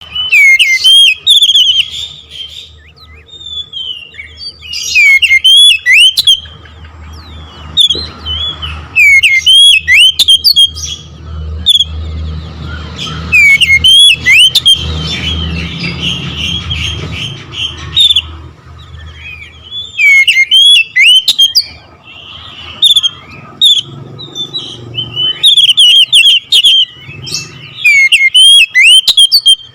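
Oriental magpie-robin (kacer) singing loud bursts of rapid, sweeping whistled phrases, in clusters a few seconds apart with quieter song between them. A low rumble runs underneath, strongest in the middle.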